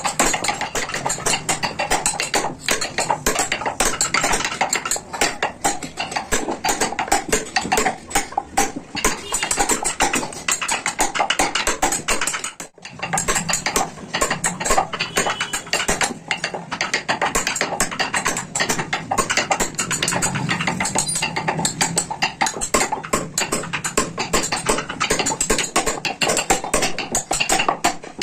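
A hammer tapping a small carving chisel into a wooden vase: quick, light, steady strikes, with a brief pause about halfway through.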